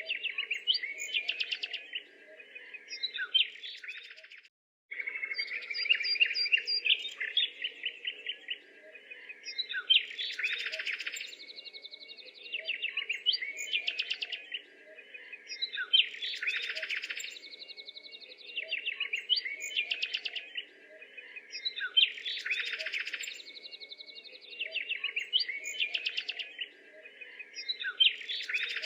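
Birds chirping and twittering in a background recording that repeats about every six seconds, with a brief dropout about four seconds in.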